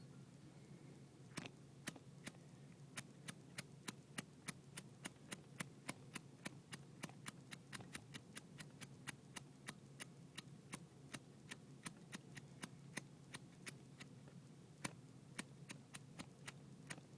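Zippo lighter's flint wheel struck over and over, faint sharp clicks about three a second, without the wick catching: the lighter fuelled with acetone nail polish remover won't light after sitting.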